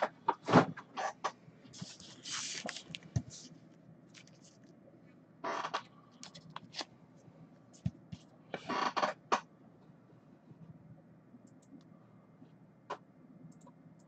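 Scattered rustling, scraping and clicks of a cardboard trading-card box and foil card packs being handled on a tabletop, with the longer rustles in the first ten seconds and only a single click near the end.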